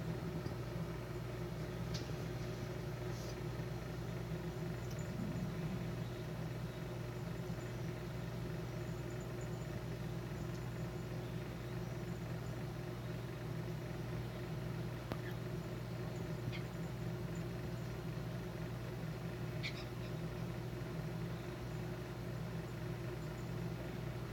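Steady low mechanical hum of several held tones, with a few faint, brief ticks or taps scattered through.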